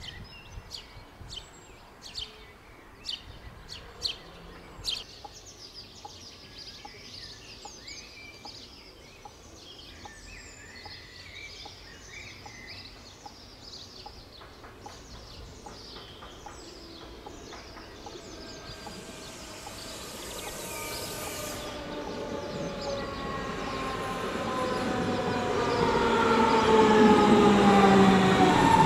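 Sharp clicks and bird chirps, then an electric train approaching, growing louder over the last ten seconds with several whining tones that slide down in pitch.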